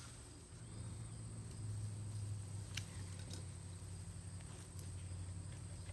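Quiet outdoor background: a steady low hum, a thin steady high whine like insect song, and a few faint light clicks.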